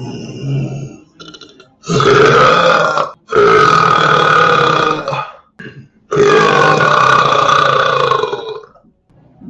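A person belching loudly: three long drawn-out burps, the last running about two and a half seconds, with a short softer one at the very start.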